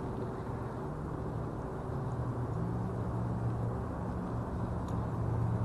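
Vehicle engine running with a steady low drone, its pitch stepping up slightly about two seconds in.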